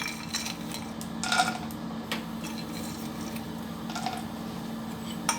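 A few light knocks and clinks of a metal utensil against a kadai as cashews go into hot ghee, over a steady low hum.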